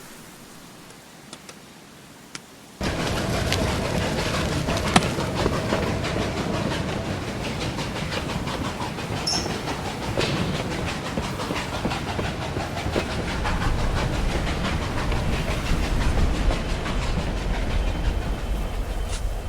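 Foley of a moving train: a loud, continuous rumble with dense rattling clatter, cutting in suddenly about three seconds in after a quiet stretch with a few faint clicks.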